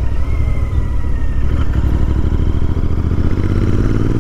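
Royal Enfield Interceptor 650's parallel-twin engine running through short slip-on exhausts as the bike is ridden along at road speed. The engine note rises a little near the end.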